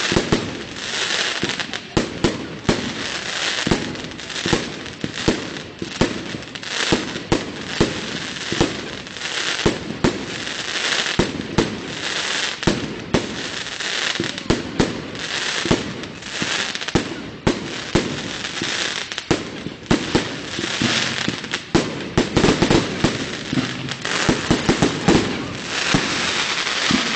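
Fireworks display: a continuous barrage of aerial shell bursts, many sharp bangs a second or less apart over an unbroken crackle.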